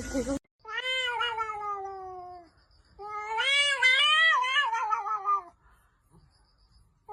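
A cat yowling: two long drawn-out meows, the first sliding slowly down in pitch, the second longer and wavering up and down.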